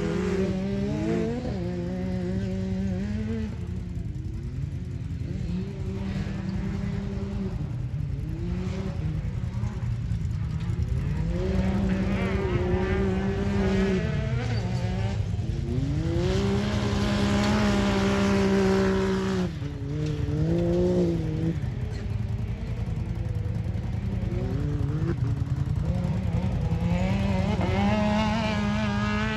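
Side-by-side UTV engines racing under throttle. The pitch climbs, holds level for long stretches, then falls away sharply about two-thirds of the way through before climbing again near the end.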